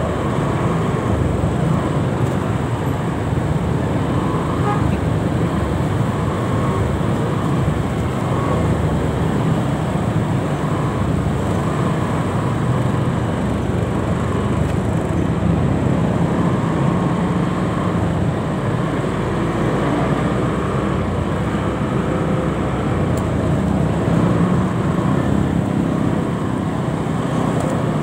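Dense road traffic heard from a motorcycle moving slowly among other motorcycles and cars: a steady mix of engines and tyre noise with no single standout event.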